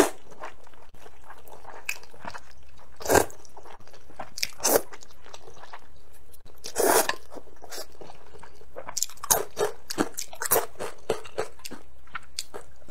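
Close-miked eating of hot and sour wide starch noodles: a few loud slurps of noodles in the first half, then a run of quick, wet chewing clicks in the last few seconds.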